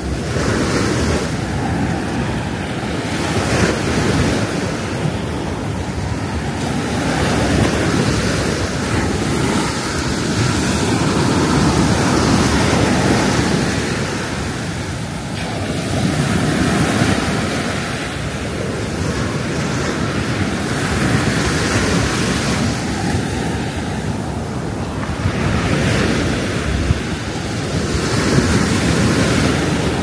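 Sea surf breaking and washing up the beach, swelling and ebbing every few seconds, with wind buffeting the microphone.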